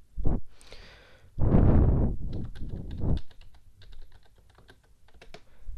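Typing on a computer keyboard: scattered key clicks, mostly in the second half, with a louder rush of noise on the microphone from about a second and a half to three seconds in.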